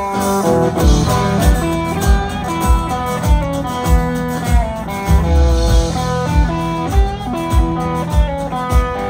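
Live country band playing an instrumental passage through a PA: acoustic and electric guitars and a fiddle holding notes over a steady kick-drum beat, a little under two beats a second.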